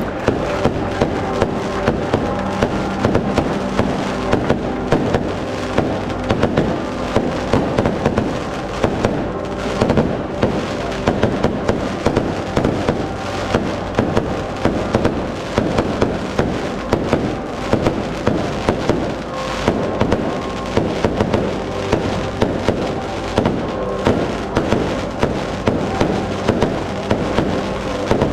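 Festa fireworks crackling: an unbroken barrage of small sharp bangs, several a second, with steady tones beneath.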